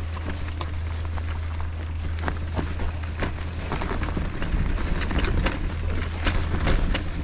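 Electric mountain bike riding over a rough, muddy trail: irregular clicks and rattles of the bike and trail debris over a steady low rumble, growing louder and busier about halfway through.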